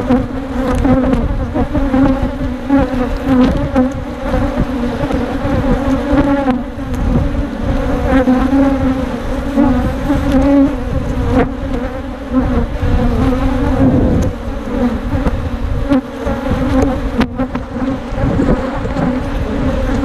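Honey bees buzzing loudly around the microphone, a dense wavering hum of many wings that shifts in pitch as bees fly close: a defensive colony stirred up by the open hive.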